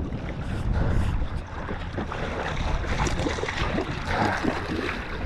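Wind buffeting the microphone and water sloshing against a kayak hull, with irregular light knocks and rattles from handling on the deck.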